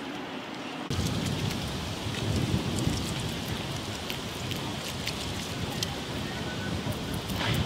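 Grey squirrels foraging at a pile of peanuts, with a dense patter of small crackles and clicks from shells and dry leaves being handled, over a steady low rustle.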